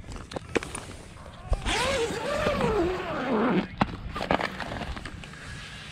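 A muffled voice inside a fabric ice-fishing shelter for about two seconds, with the shelter's fabric brushing and rustling against the microphone and hands. A few sharp clicks come near the start.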